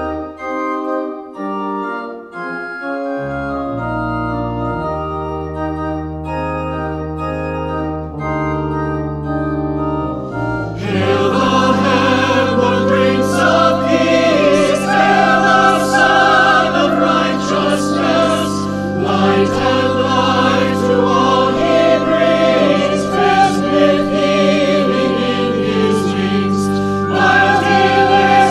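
Organ playing slow, sustained chords on its own; about ten seconds in, a choir comes in singing over the organ, and the music grows louder.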